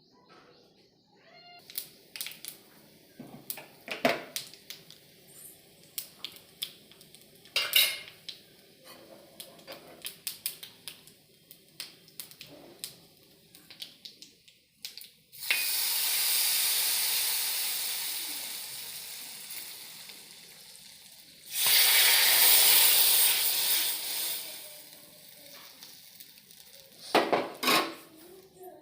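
Metal utensils clinking and knocking against a cooking pot. About halfway through, a loud sizzle starts suddenly and fades over several seconds, as something hits hot oil. A second strong sizzle follows a few seconds later.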